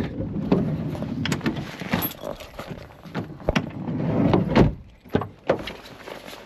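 Handling noise at a car: the car door opened and the fabric bag holding the waders shuffled onto the back seat, rustling, with a string of sharp clicks and knocks.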